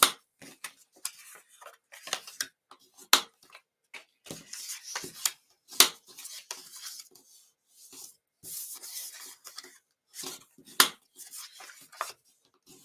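Cardstock being folded and creased with a bone folder: scraping rustles as the folder is run along the score lines, with sharp taps and clicks of the card and folder against the tabletop.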